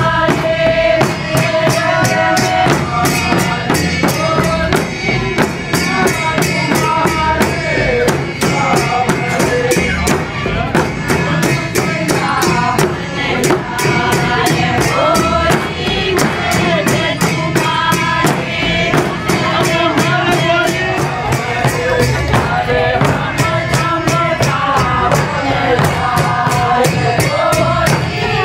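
Group singing of a Holi song over a fast, steady beat of barrel drums and jingling percussion.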